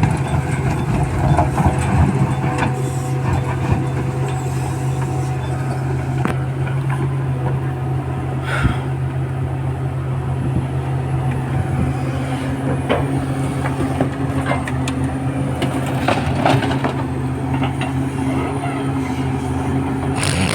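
EX350 excavator's diesel engine running steadily under load, with scattered knocks and a brief hiss about eight and a half seconds in.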